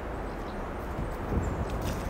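Footsteps of a person walking over soil among cabbage plants, a few steps heard in the second half, over a steady rumble of wind on the microphone.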